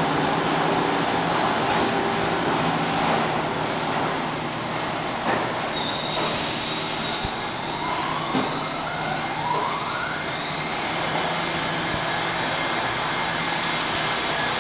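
R68A subway train rolling into the station and slowing to a stop: a steady rumble of wheels and motors, with whining tones that rise in pitch a few times midway through.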